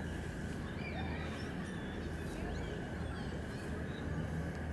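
Outdoor ambience: a steady low rumble with a faint steady high-pitched tone, and scattered short bird calls and chirps.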